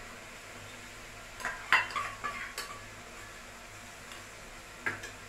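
A metal spoon clinking and scraping against a small steel bowl while turmeric-and-chilli paste is scraped out into the pan: a cluster of sharp clinks about one and a half to two and a half seconds in, the loudest with a brief ring, and one more clink near the end.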